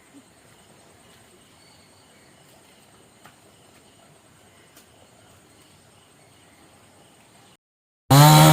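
A faint steady high-pitched buzz with a few light ticks, then a short dead gap, then a chainsaw engine cutting in loud and running near the end.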